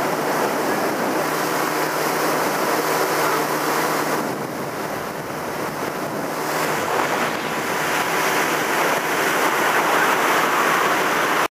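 Wind and rushing water from a boat running across the water, with a boat outboard motor's steady hum in the first few seconds that then fades under the rush. The sound cuts off abruptly near the end.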